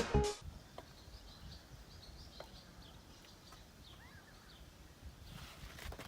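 Faint outdoor ambience with a few small, high bird chirps scattered through it, after music cuts off in the first moment.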